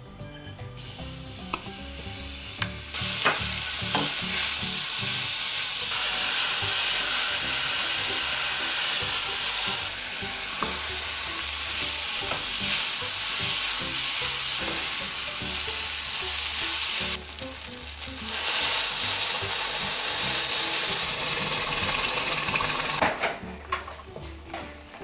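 Diced vegetables and rice sizzling in sesame oil in a pot while a wooden spoon stirs and scrapes them, with a few light knocks of the spoon. The sizzling starts about a second in, dips briefly a few seconds before the end, and fades away near the end.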